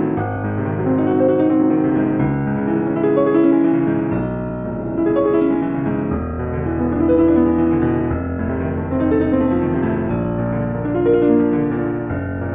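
Background piano music with slow, held chords and a changing bass line.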